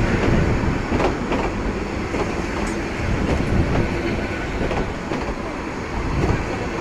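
Intercity passenger coaches rolling past on the rails, with a steady rumble from the wheels and a few sharp clacks over the rail joints.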